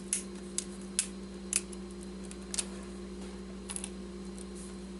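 Plastic keycaps being prised off an HP wireless keyboard one at a time: sharp little clicks and snaps, about six spread irregularly over a few seconds. A steady low hum runs underneath.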